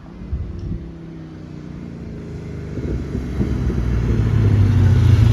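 Holden 5-litre 304 V8 of a 1995 VS SS Commodore running, its pitch easing slightly down over the first few seconds, then growing steadily louder with a strong low note through the rest.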